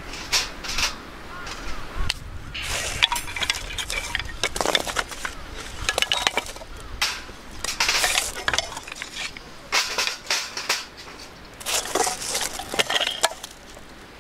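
Thin metal sheet of a folding fire pit rattling in its wire frame as it is set, then dry sticks of firewood laid into it, repeatedly knocking and clattering against the metal.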